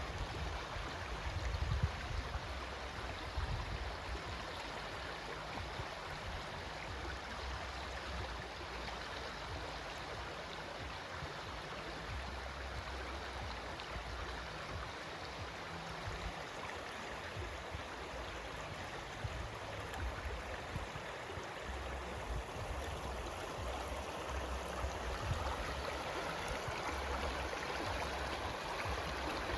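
Stream water flowing steadily, with a low rumble that comes and goes underneath.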